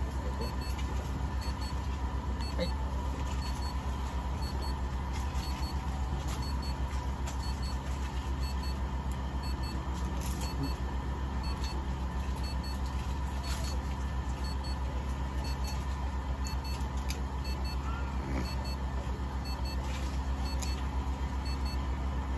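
Steady electrical hum from running equipment, with a faint high beep repeating about once a second, and a few sharp clicks of nail clippers trimming a cat's claws.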